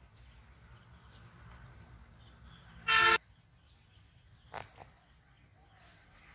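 A single short horn toot about three seconds in, loud and clear over faint outdoor background. A much fainter, briefer sound follows about a second and a half later.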